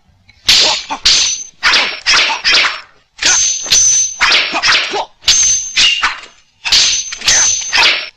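Sword-fight sound effects: a rapid run of metal blades clashing, about two clangs a second. Each clang is a sharp hit with a swish and a short, high metallic ring.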